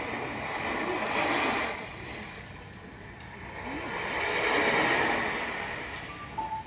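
Crowd at a live club show cheering and screaming in two swells, the louder about four and a half seconds in. A held keyboard note comes in near the end as the next song starts.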